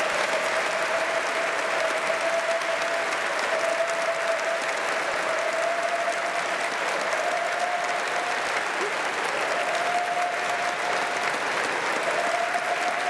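A large crowd applauding steadily. Behind the clapping a single steady tone is held, breaking off and coming back a few times in the second half.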